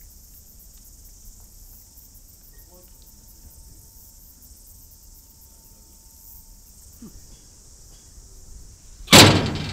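Insects chirping steadily in a high, even drone. A single sudden loud thump about nine seconds in.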